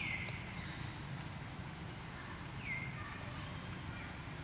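Birds calling: a short whistle that slides down in pitch, heard twice, and brief high peeps about once a second, over a steady low rumble.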